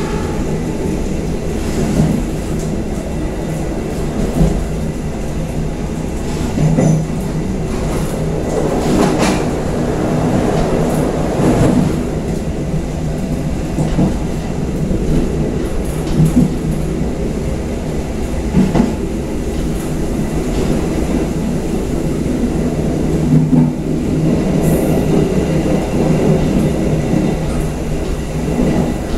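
Passenger train coaches running along the track, heard from the rear of the last car: a steady rumble of wheels on rail with a short knock about every two and a half seconds.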